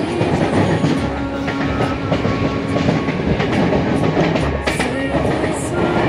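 Passenger train running at speed: the steady rumble and clatter of its wheels on the rails.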